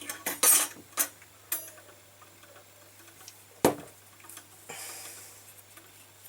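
A few sharp clicks and knocks of hand tools and leather being handled on a workbench, the loudest a knock a little under four seconds in, with a short soft rustle about a second later.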